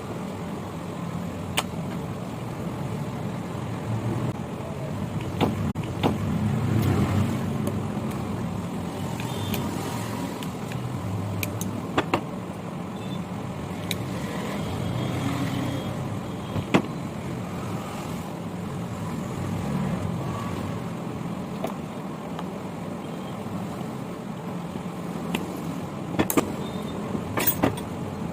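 Steady low background rumble like passing road traffic, with a dozen or so sharp clicks and taps scattered through it, several close together near the end.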